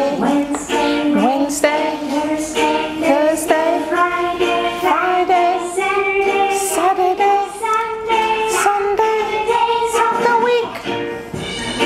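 Music: a children's days-of-the-week song, a sung melody over an instrumental backing with a steady beat.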